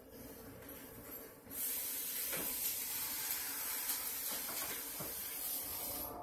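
A steady hiss starts suddenly about a second and a half in and holds steady.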